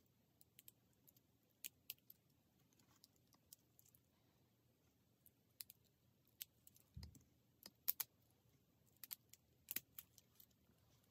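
Faint, irregular light clicks and small rattles of hard small objects, a few at a time. They bunch up about two-thirds of the way through, just after a soft low thump.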